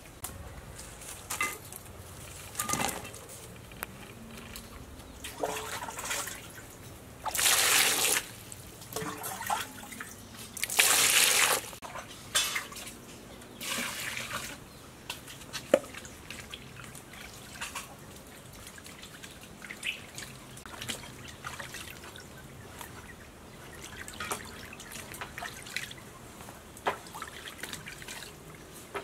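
Water poured from a small bowl into a clay basin and trickling over peeled sponge gourds as they are rinsed by hand, with splashes and drips. Two longer, louder pours come about seven and eleven seconds in.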